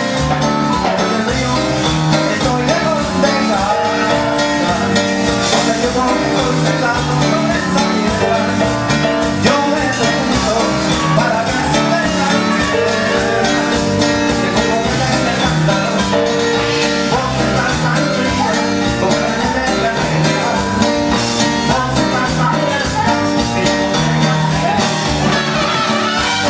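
Live cumbia band music at a steady dance beat, with electronic keyboard, drum kit and singing.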